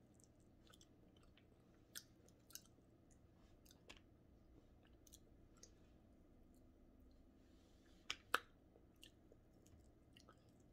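Faint, close-up chewing of crispy fried bigeye scad (matambaka) eaten by hand, with scattered small crunches and clicks; two sharper crunches come about eight seconds in.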